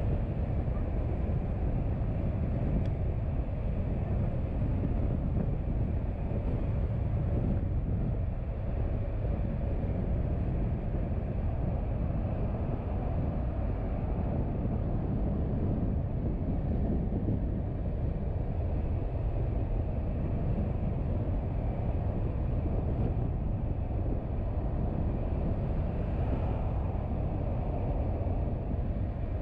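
A car driving at a steady speed: a continuous low rumble of road, tyre and engine noise.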